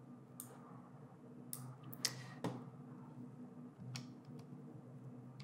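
A handful of scattered, faint computer mouse and keyboard clicks, one of them a press of the A key about four seconds in, over a faint steady low hum.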